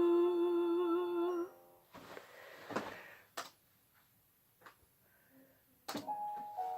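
A young singer holds one long final note of a musical-theatre song over a sustained accompaniment chord; it cuts off about a second and a half in. A few soft knocks and clicks follow, then about six seconds in piano notes begin the introduction to the next song.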